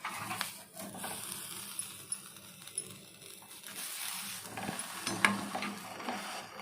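Butter sizzling in a frying pan under a stuffed bread slice as it toasts, with a few light clicks of a utensil against the pan.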